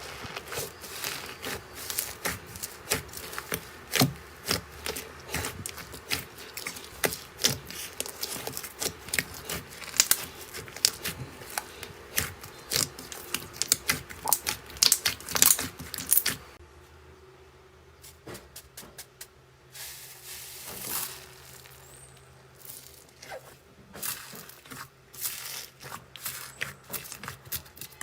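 Slime being squished and poked by hand, with dense crackling and popping clicks. About sixteen seconds in the clicking thins to sparser, quieter pops, then grows denser again near the end.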